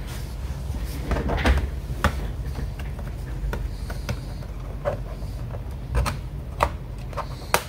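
Scattered clicks and knocks of a laptop's plastic casing and small parts being handled as its RAM compartment cover is opened, over a steady low hum.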